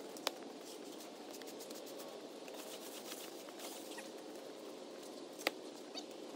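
Steady outdoor background hiss with scattered light ticks, and two sharp clicks: one about a quarter of a second in, one near the end.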